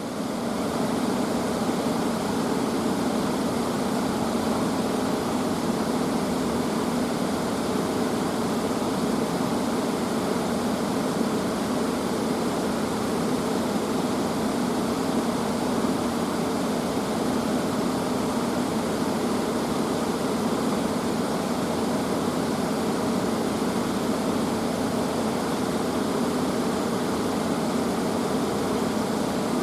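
Steady rushing noise of a mountain stream, fading in just before the start and then holding at an even level.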